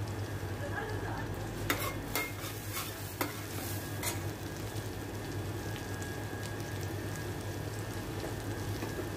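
Chopped garlic sizzling in melted butter in a stainless steel frying pan. A metal spoon clinks and scrapes against the pan a few times about two to four seconds in as the garlic is stirred.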